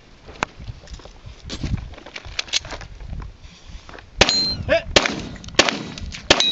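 Gunshots fired in a string at a 3-gun stage, spaced out and fainter at first, then louder and quicker over the last two and a half seconds. A brief ringing tone follows a shot about four seconds in.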